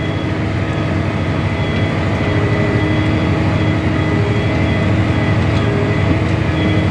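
Farm tractor's diesel engine running steadily under load while pulling a seven-bottom plow, heard from inside the cab.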